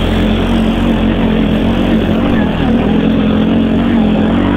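Quad bike (ATV) engine running under throttle, climbing a slope; its steady note wavers slightly up and down.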